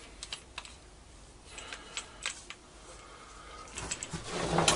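A wooden block and pencil handled on a wooden board: light scattered clicks and knocks, then a louder rubbing scrape about four seconds in as the block is drawn along the board's edge to mark a line.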